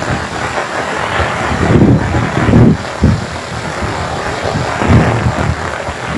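Heavy rain falling steadily with a constant hiss, broken by irregular low thumps and rumbles.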